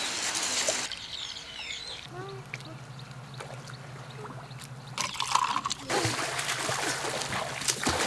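Water splashing and pouring in irregular bursts, with a steady low hum setting in about two seconds in.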